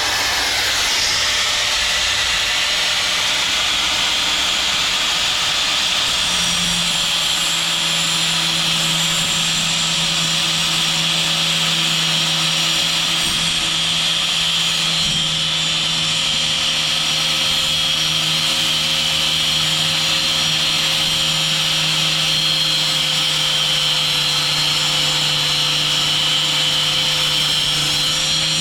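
Angle grinder cutting through a steel coil spring: a steady, high grinding whine that runs without pause, with a lower steady hum coming in about six seconds in.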